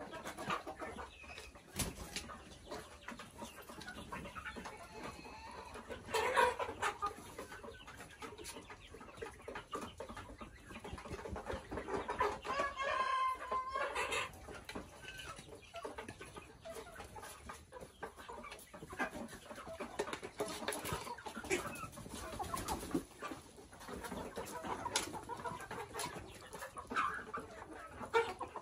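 A flock of young local chickens clucking and calling, with one longer drawn-out call about halfway through and scattered sharp ticks throughout.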